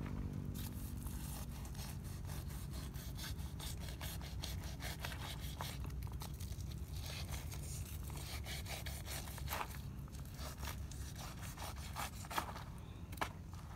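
A steel knife blade sawing down through the charred, crusty skin of a fire-roasted pineapple, a quick run of short scraping strokes, with a few louder strokes near the end.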